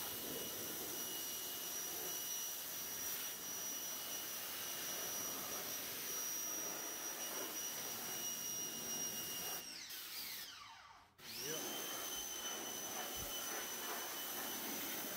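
Pressure washer running, its jet hissing against the engine bay's sheet metal over a steady high motor whine. About ten seconds in the whine falls away and the washer goes almost silent as the trigger is let go, then it spins back up and spraying resumes.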